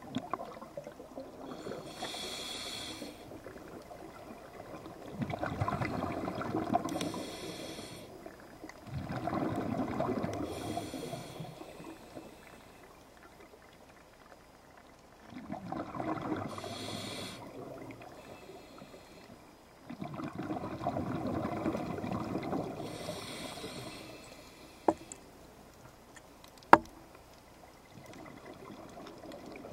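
Scuba diver breathing through a regulator underwater: a hiss on each inhale and a rush of exhaled bubbles, repeating every few seconds. Two sharp clicks come near the end.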